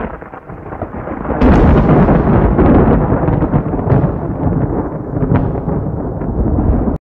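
Thunder: a rumble that builds, a loud crack about a second and a half in, then rolling rumble that cuts off abruptly at the end.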